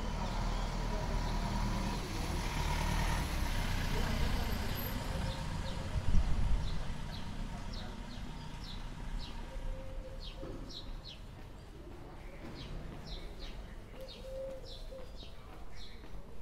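A van's engine running as it passes close by, with a loud thump about six seconds in. Then it goes quieter, with scattered short high ticks over the street's background noise.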